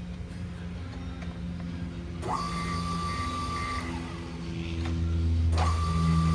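Summit lathe's rapid-traverse motor, run from the 4-way joystick: a whine that rises quickly and holds steady for about a second and a half about two seconds in, then rises and holds again near the end, over a steady low hum.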